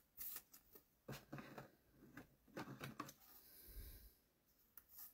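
Faint rustling and light clicks of a trading card and clear plastic card sleeves being handled, with a soft low bump a little before the four-second mark.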